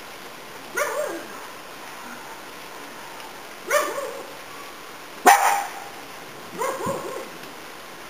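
Papillon barking four times, a second or two apart, with the third bark the loudest.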